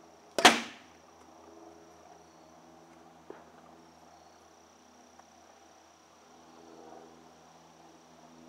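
A bat hitting a ball off a batting tee: one sharp crack about half a second in, then a faint click about three seconds in.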